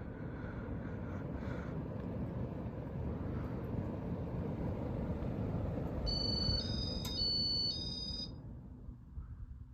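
Casablanca Meridian ceiling fan running in its demo cycle, a steady rush of air and motor noise that dies away near the end. About six seconds in, a high electronic beep alternating between two pitches sounds for about two seconds.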